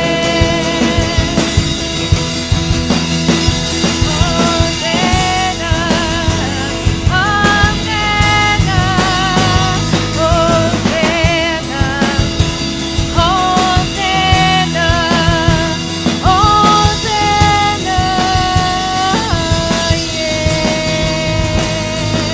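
Live worship band playing with drum kit and guitars, a melody line with vibrato riding over the top.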